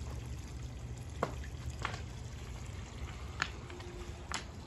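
Water pouring and trickling steadily as the pond is refilled, with a handful of sharp drips or plinks scattered through it over a low steady rumble.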